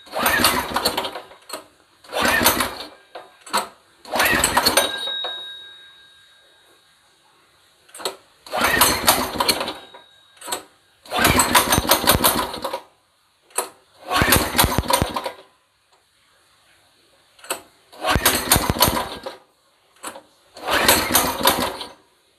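New 200 cc single-cylinder four-stroke engine of the Honda GX200 type being pull-started again and again on its first start, with the choke closed. About eight attempts, each a second or two of engine noise that stops again: it will not keep running yet.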